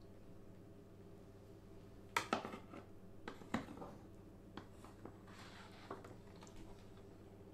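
Plastic print tongs clicking and knocking against a plastic developing tray as a sheet of photographic paper is dipped in liquid developer and lifted out dripping. There are several light knocks, spaced about half a second to a second apart.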